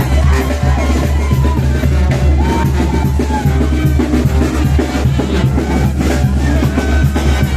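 Street band playing lively dance music for a calenda, a bass drum and snare keeping a steady beat under a held melody line.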